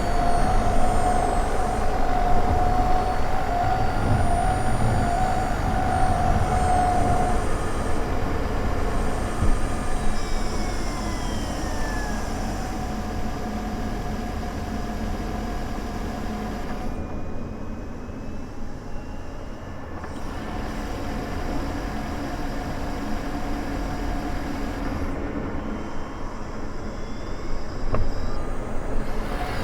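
Honda ZR-V heard from a microphone inside its engine compartment, running: a steady whine, strongest for the first several seconds, over a low rumble, with several tones sliding down in pitch about a third of the way in. The owner suspects that the abnormal noise (異音) comes from the engine compartment.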